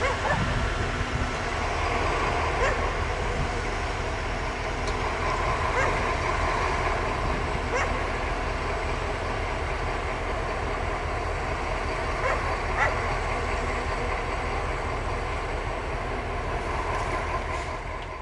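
Two SNCF BB 67400 diesel-electric locomotives in multiple unit, idling at a standstill with a steady low engine hum. A few brief sharp sounds stand out over it.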